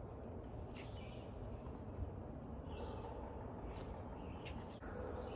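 Songbirds chirping now and then in woodland, short high calls over a steady low background rumble.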